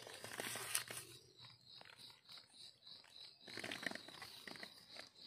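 A knife scraping and digging in soil and dry leaf litter to cut out mushroom buttons, with rustling of the leaves, loudest about half a second in and again near four seconds. Under it, a steady, rapidly pulsing high-pitched drone.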